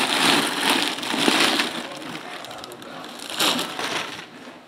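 Clear plastic bag crinkling and rustling as it is pulled off a full-size football helmet. It is loudest through the first second and a half, with another short rustle about three and a half seconds in.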